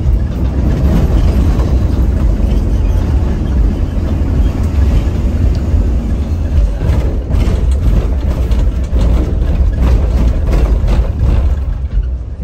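Heavy diesel bus engine running with a loud, steady deep rumble, joined about halfway through by a run of clicks and rattles.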